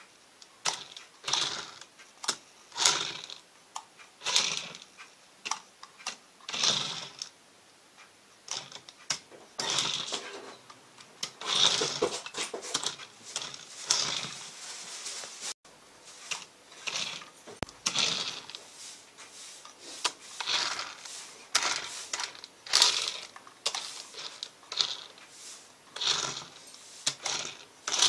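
Tiny electric drive motor and plastic gears of a 1:32-scale radio-controlled Ferrari 458 toy car whirring in short, irregular spurts as it is driven, with clicks in between.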